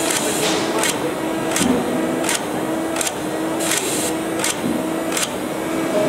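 Twister automatic die-rubbering machine at work: a steady motor hum that comes and goes as the head moves, with a short hissing click about every 0.7 s as it sets each rubber piece.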